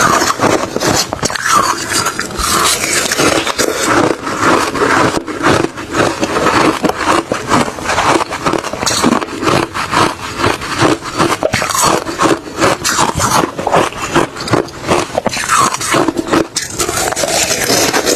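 A person chewing refrozen crushed ice mixed with shaved ice: a dense, unbroken run of crunches and crackles.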